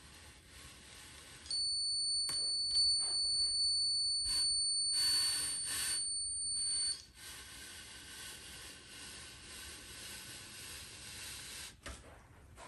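Electronic stud finder sounding one high, steady beep for about five seconds, which then cuts off suddenly, while it is slid across drywall.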